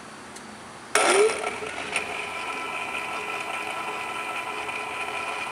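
Explosion-proof electric valve actuator on a butterfly valve starting up with a sudden clunk about a second in, then its motor running with a steady hum as it turns the valve disc.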